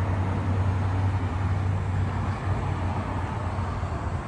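A car running, with a steady low hum and an even wash of engine and road noise.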